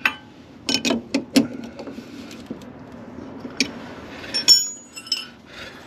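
A handful of sharp metallic clicks and clinks, one ringing briefly about four and a half seconds in: hand tools working a coilover as its threaded spring seat is wound up.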